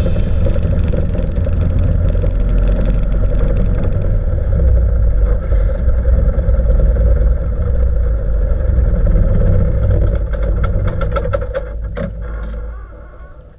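Piper PA-19's piston engine and propeller running steadily as the aircraft taxis, heard from inside the cockpit with a little rattling. The sound fades out near the end.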